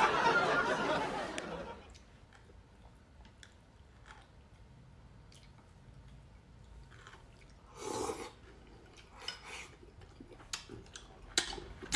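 Quiet eating at a table: soft chewing and slurping in a few brief bursts, with faint light clicks like chopsticks touching porcelain bowls. A louder noise fades out about two seconds in.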